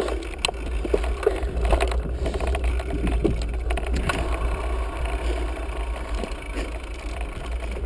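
Mountain bike riding along a dirt trail, picked up by an action camera: a steady low wind rumble on the microphone with scattered clicks and rattles from the bike going over bumps.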